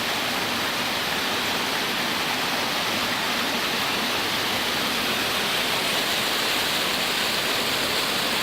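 Steady rush of a waterfall: water pouring over rock cascades, an even unbroken roar.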